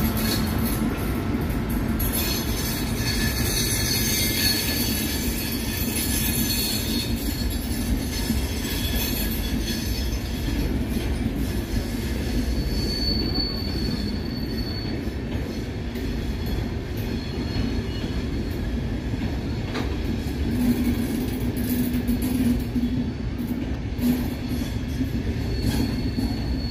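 An Indian Railways express, an electric locomotive hauling passenger coaches, running past with a steady rumble of steel wheels on the rails. A faint high wheel squeal comes in about halfway and again near the end.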